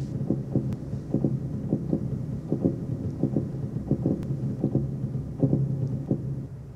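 Low, throbbing rumble: soft irregular thuds, two or three a second, over a steady low hum.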